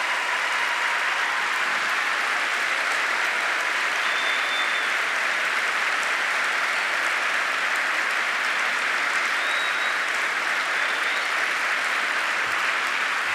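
Large audience in an auditorium applauding steadily: sustained, dense clapping with no speech over it, in response to an announcement.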